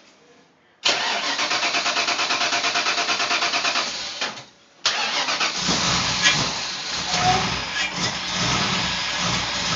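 Starter of a turbocharged 1991 Ford Mustang LX cranking the engine in a steady pulse for about three seconds, stopping, then cranking again; the engine catches just after the halfway point and keeps running.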